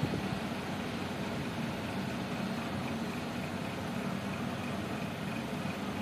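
Steady low machine hum with a faint high whine over it.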